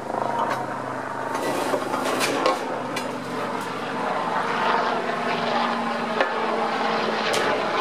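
Steady engine drone, with a few sharp knocks and scrapes as a wooden board is set against a rusted steel plate.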